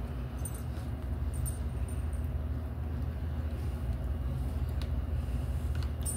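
A steady low rumble, with a few faint clicks and slurps from two people eating cup noodles with plastic forks.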